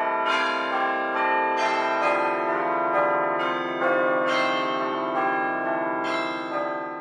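Church bells ringing: a steady run of overlapping strikes, a new one about every half second, each left to ring on under the next, easing off a little near the end.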